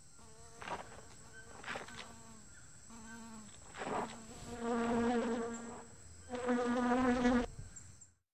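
A fly buzzing, its wavering drone fading in and out and swelling loudest twice, about four and six and a half seconds in, with a few faint ticks between. It cuts off suddenly at the end.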